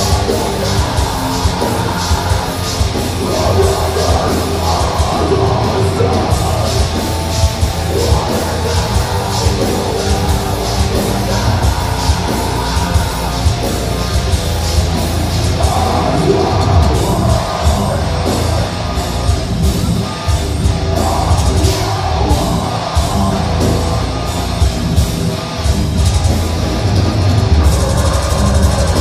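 Deathcore band playing live: heavily distorted electric guitars and bass over fast, hard-hit drums, with harsh screamed vocals.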